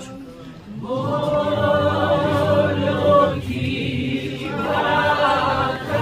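A group of voices singing together in harmony on long, held notes, coming in strongly about a second in.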